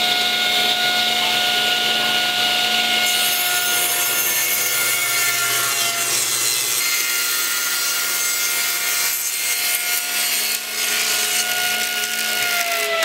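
Table saw running with a steady whine while ripping a strip of poplar. The blade's cutting noise fills in about three seconds in, and near the end the whine starts to fall as the saw winds down.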